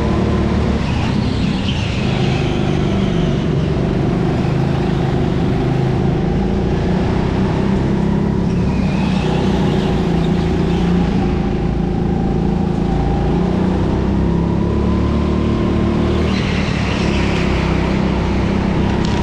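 Racing kart running at speed on an indoor track, its motor held steady with small rises and falls in pitch. Brief high tyre squeals come a few times: near the start, around the middle and near the end.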